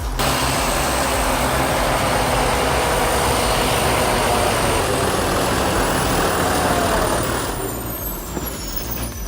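Heavy vehicle running with a loud, hissy noise over a steady low rumble. About seven and a half seconds in it eases off, and a thin high whine slowly falls in pitch.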